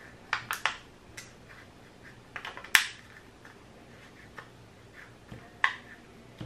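Thin plastic insulating sheet crinkling and clicking in several short bursts as it is handled and pressed onto a circuit board. The sharpest click comes a little under three seconds in.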